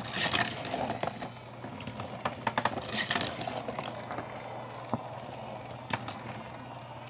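Plastic Thomas & Friends mini trains clattering and clicking along a motorized toy railway track. Dense rattling for the first few seconds, then only a few single clicks over a steady low hum.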